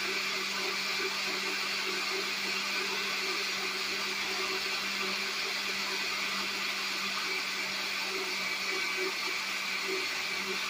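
Countertop blender running steadily on its low setting, with a constant motor hum, mixing a liquid flan batter.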